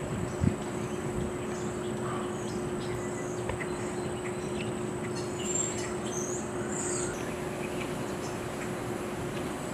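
Outdoor ambience: a steady background rush with a low hum and a thin, high steady whine, and a few short bird chirps about halfway through. A brief low thump sounds just after the start.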